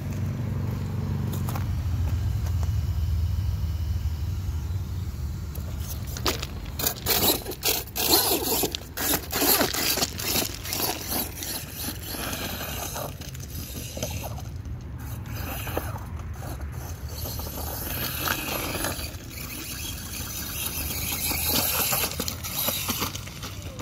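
Redcat Volcano EPX RC monster truck with a Hobbystar 3500KV brushless motor on 3S, driven over railroad ballast: the electric motor whines while the tires scrape and fling loose gravel. A dense run of rattling stone knocks comes in the middle.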